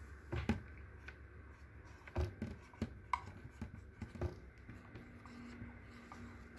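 Felt-tip marker writing on a whiteboard: a run of short, irregular scratches and taps as letters are drawn, a few louder strokes among them.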